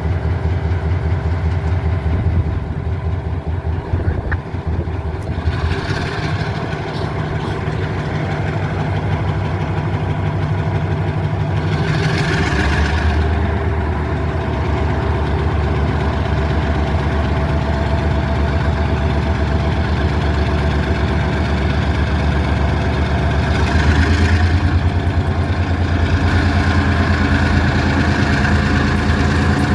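Diesel locomotive engine running steadily at low throttle, its pitch stepping up about twelve seconds in and again near the end as the throttle is notched.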